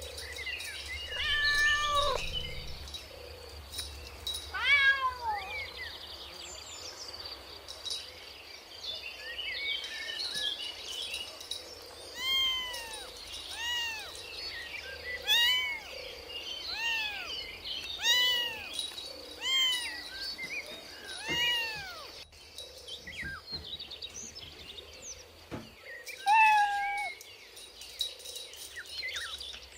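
Kittens mewing repeatedly: short high-pitched calls that rise and fall in pitch, a few near the start, then a run of about one a second through the middle, and one more near the end.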